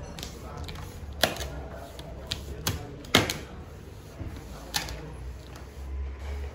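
Vinyl wrap film being stretched and pressed onto a car hood with a hand squeegee: the squeegee rubs along the film, and the taut film gives several sharp, separate clicks and snaps.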